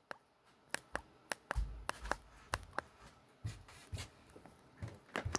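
Irregular small clicks of a Newmind F15 flip phone's keypad buttons being pressed while scrolling through menus, mixed with a few soft low thumps of the phone being handled.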